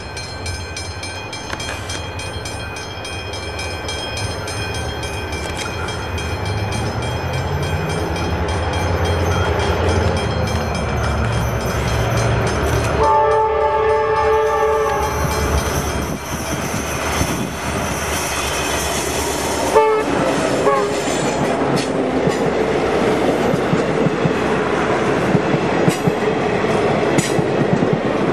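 Heritage passenger train hauled by T-class diesel locomotives approaching, the diesel engines' rumble growing louder as it nears. The locomotive horn sounds one chord for about two seconds halfway through. Then the train passes close by with the clatter and rumble of the carriages' wheels on the rails.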